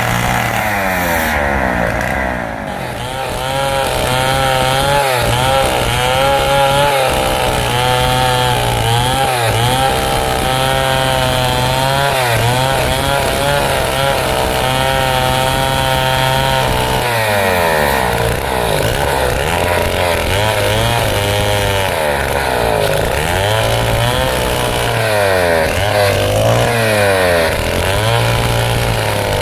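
Stihl chainsaw cutting lengthwise through a large teak log, running hard under load. The engine dips briefly about two seconds in, then holds steady, and in the second half its speed rises and falls over and over as the load on the chain changes.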